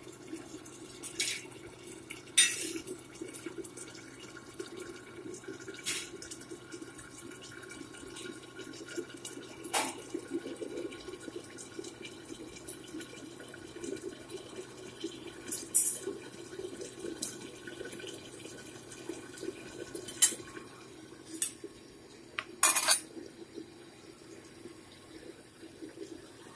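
Curry boiling in a covered pan on high heat: a steady bubbling under the lid, with a faint low hum and scattered sharp clicks and pops.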